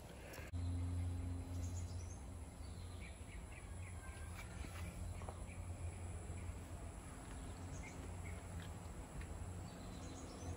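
Faint outdoor ambience: a steady low rumble that starts suddenly about half a second in, with scattered faint bird chirps.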